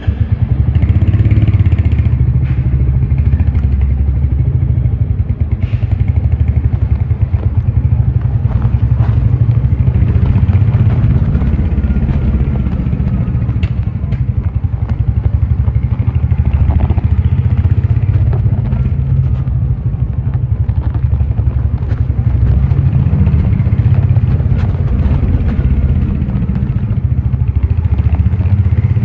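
Royal Enfield Hunter 350's single-cylinder engine running under way, a steady low thump of exhaust pulses.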